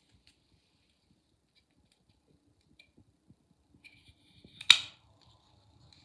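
Gerber Decree folding knife being opened: a few faint handling clicks, then the blade snaps open and locks with one sharp metallic click about three-quarters of the way through.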